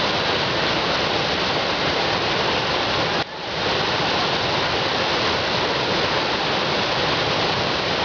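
Steady rushing of a fast, muddy mountain river in monsoon flood. It dips briefly about three seconds in.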